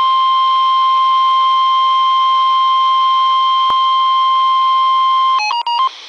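NOAA Weather Radio warning alarm tone: one steady, loud 1050 Hz beep from a weather radio receiver, signalling that a warning follows, with a single click about three and a half seconds in. About five and a half seconds in the tone breaks into a few quick short beeps of differing pitch, then gives way to radio hiss.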